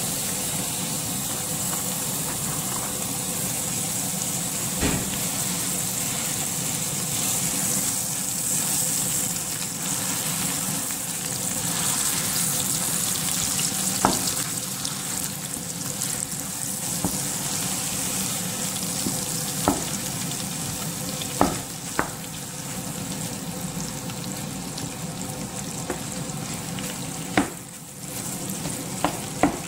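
Ground beef, still partly frozen, sizzling steadily in hot butter in a frying pan. A wooden spatula stirs and breaks up the meat, knocking sharply against the pan a few times.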